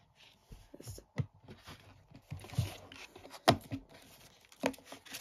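A paper-covered album photobook being handled and lifted out of its cardboard box: soft paper and card rustling with a few light taps, the sharpest about three and a half seconds in.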